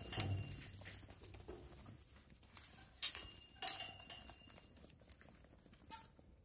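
A group of goats scrambles and trots out of a pen, their hooves pattering and scuffing on straw bedding and dirt. About three seconds in come two sharp metallic clanks, each with a short ring.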